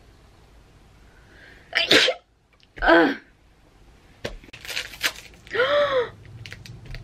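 A woman sneezing: two loud, short bursts about a second apart, around two and three seconds in. Then come light clicks and rustling, and a short voiced exclamation near the end.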